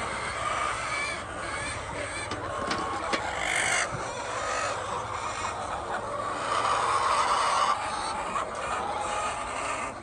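Hens clucking in a poultry house, a continuous chorus of overlapping calls that grows louder about two-thirds of the way through.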